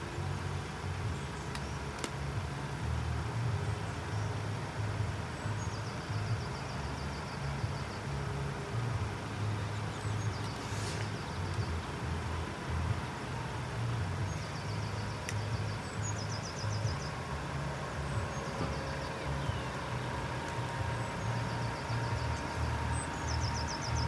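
A low, steady vehicle rumble at the level crossing. Short high trills come in about four times over it.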